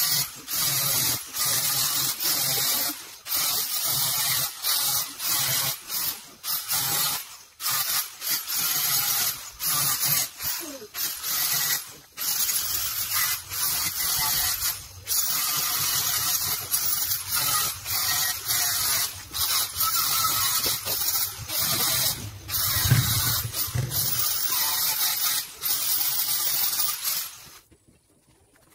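Angle grinder cutting clay brick, a harsh high-pitched grinding that breaks off and starts again many times, then stops suddenly about a second before the end.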